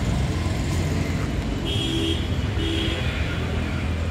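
Steady low rumble of a vehicle engine running, with two short high-pitched horn beeps a little under a second apart, about two and three seconds in.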